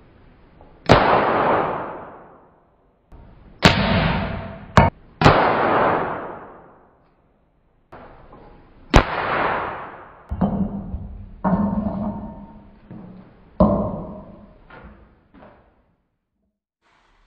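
Hammer blows on a steel anvil, about eight strikes. The four loudest are sharp cracks, each with a long fading echo. The later, weaker blows carry a ringing tone from the anvil.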